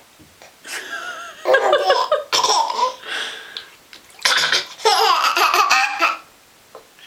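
Baby laughing in several bouts of high-pitched, wavering giggles, set off by his mother's hiccups.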